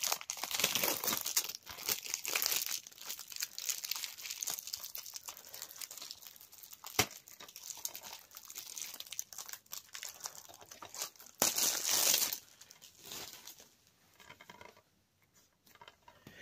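Plastic shrink-wrap being torn and crumpled off a DVD case: an irregular run of crinkling and ripping, with one sharp click about halfway and a louder stretch about three quarters through, then dying away near the end.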